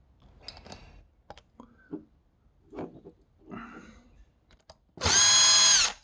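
Power drill with a screwdriver bit spinning out a screw from a plastic microphone handle: a steady motor whine lasting about a second near the end. Before it, light clicks and taps as the microphone and drill are handled.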